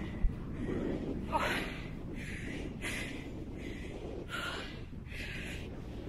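A hiker panting hard while climbing a steep hill, a quick breath roughly every three-quarters of a second, over a low rumble of wind on the microphone.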